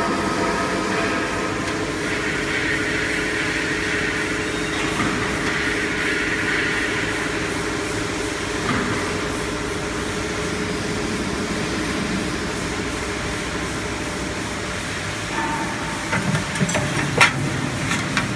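Light keel roll forming machine running, a galvanized steel profile feeding through its forming rollers with a steady mechanical hum and rumble. Near the end come a few sharp knocks, one much louder than the rest.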